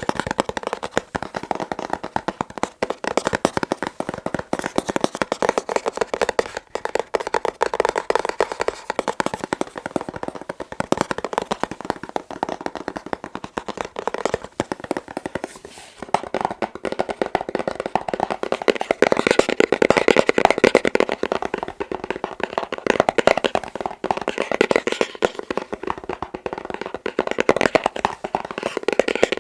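Fast, continuous fingertip tapping on a box, many taps a second. There is a brief pause about halfway through, after which the tapping sounds brighter.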